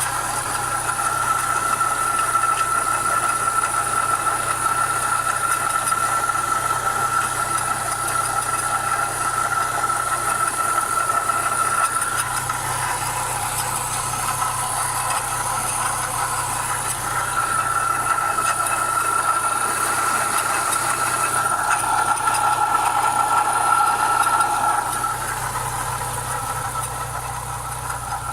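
Renault Clio 172's 2.0-litre 16-valve four-cylinder engine idling, with a steady metallic grinding from the timing belt area.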